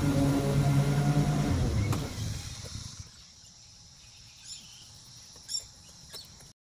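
Stand-on ride-on mower's engine running steadily, then shut off about two seconds in and quickly dying away. Afterwards only a faint outdoor background with a couple of light ticks.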